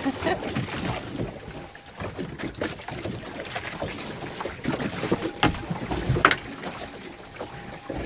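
Wind buffeting the microphone and choppy sea water slapping against a small fishing boat's hull, with scattered knocks and rattles as the fish is reeled up to the boat.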